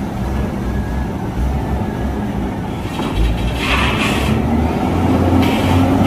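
Hino 500 heavy truck's diesel engine running under load. Its note firms into a steadier, stronger hum from about five seconds in, and a brief hiss comes around four seconds in.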